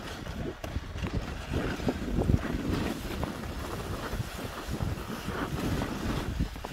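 A sled sliding over packed snow, with uneven scraping and crunching throughout, and wind buffeting the microphone.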